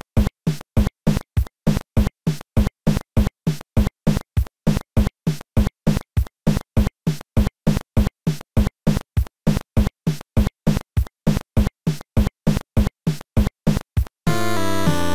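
Rapid, evenly spaced electronic thumps like a drum-machine pulse, about three or four a second. Near the end it gives way to the returning chiptune-style background music.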